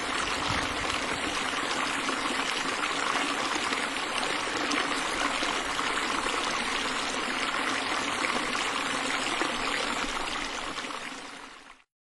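Steady rushing, trickling water noise that fades and stops just before the end.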